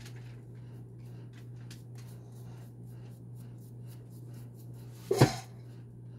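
A paintbrush working paint onto a dino mask: many faint short scratchy strokes over a steady low hum. About five seconds in there is one loud brief bump as the mask is handled.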